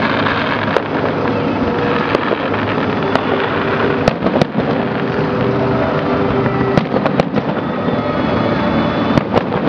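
Aerial firework shells bursting overhead as sharp bangs at irregular intervals, about one a second, over a steady background din.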